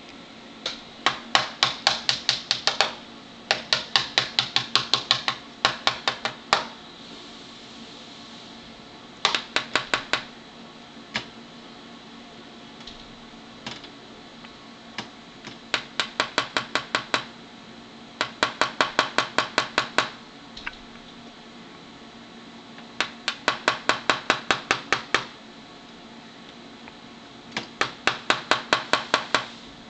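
Cockatiel headbanging: its beak rapidly tapping on a hard surface in runs of sharp clicks, about six to eight a second, each run lasting one to two seconds and repeated every few seconds.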